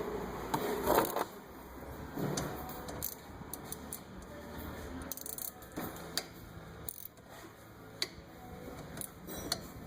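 Scattered metallic clicks and clinks of hand tools working on the rear brake caliper bolts, over a faint low hum.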